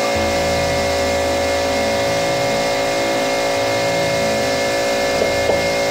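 Shop air compressor running, a steady hum of several constant tones with a low drone that comes in just after the start.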